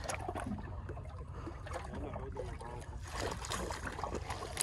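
Water splashing at the side of a small boat as a hooked fish is scooped out of the sea with a landing net, the splashes coming in the last second or so, over a steady low rumble.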